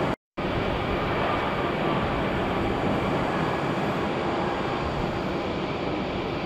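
Steady jet engine noise from a Lufthansa Airbus A320 rolling down the runway just after touchdown, heard from the airport's viewing deck. The sound drops out completely for a moment just after the start.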